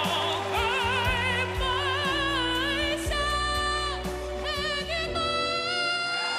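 Male singer holding long notes with backing music: first with a wide, wavering vibrato, then a long steady note that drops away about four seconds in, then a slowly rising held note near the end.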